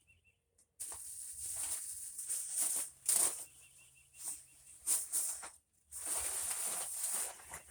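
A bag rustling and crinkling as hands rummage through it, in irregular surges with a few short pauses.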